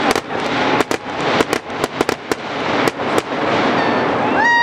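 Aerial fireworks going off in a rapid run of bangs and crackles, many reports close together. A brief high-pitched tone starts near the end.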